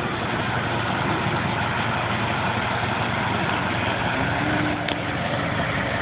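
Large engine idling steadily.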